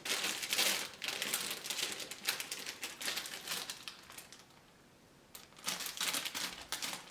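Packaging crinkling and rustling as items are handled, a dense run of irregular crackles that stops for about a second midway and then resumes.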